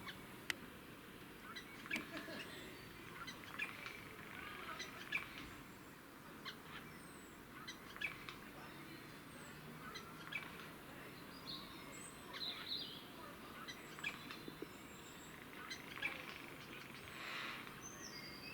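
Eurasian jays calling: a scattered run of short, sharp clicks and calls, with brief high chirps and whistles among them.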